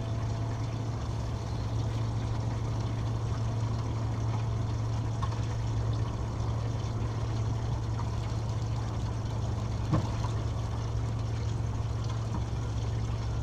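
A motor running steadily with a low, even hum, with water lapping and trickling over it. There is a single knock about ten seconds in.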